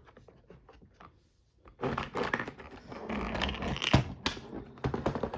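Plastic VTech busy board being handled and turned over: faint clicks at first, then a dense run of rattling and scraping with sharp knocks about four seconds in.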